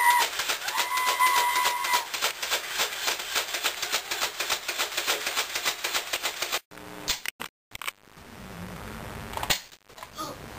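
A rapid, even run of sharp clicks or shots, about six a second, with steady high beeping tones over the first two seconds; it cuts off abruptly about six and a half seconds in.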